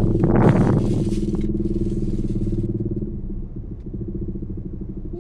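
Slow road traffic heard from inside a car: engines of nearby motorcycles and vehicles run with a steady hum. A louder engine swells up at the start, peaks about a second in, and fades over the next two seconds.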